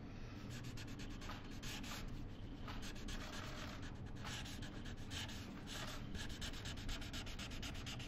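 Pen scratching across paper as a document is signed, under a dense, irregular patter of quick clicks in bursts, typical of press photographers' camera shutters firing.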